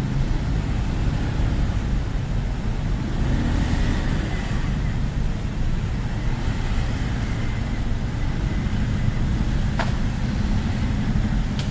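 Road traffic: cars driving past close by over a steady low rumble, with two faint clicks near the end.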